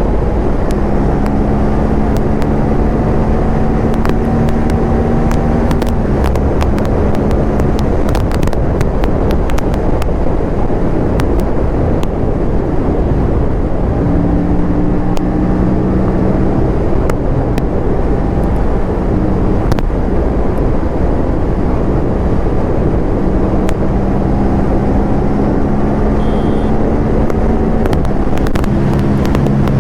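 Aprilia sport bike's parallel-twin engine running at speed over a heavy rush of wind, its pitch holding steady or rising slowly. Sharp exhaust crackles are scattered through, thickest about a third of the way in, when the engine tone drops away off the throttle.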